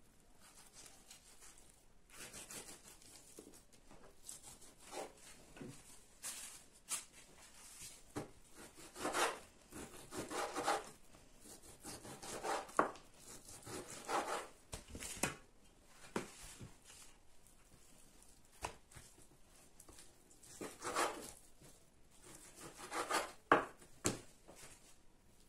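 Kitchen knife cutting and scraping through raw beef on a wooden cutting board, trimming the meat in uneven strokes, with a few sharp knocks of the blade against the board.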